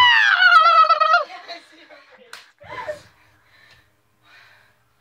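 A person's loud, high-pitched, wavering squeal that ends about a second in, followed by faint voices.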